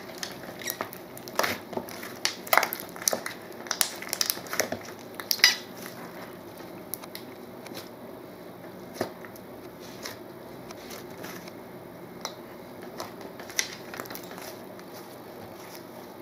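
Slime with modelling clay mixed in, squished and kneaded by hand: a run of sticky pops and crackles, dense for the first six seconds or so, then sparser.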